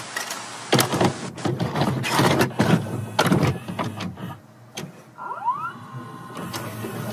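Videocassette recorder loading and starting a tape: a run of mechanical clunks and clicks, then a motor whirring up in a rising whine about five seconds in, settling into a steady hum.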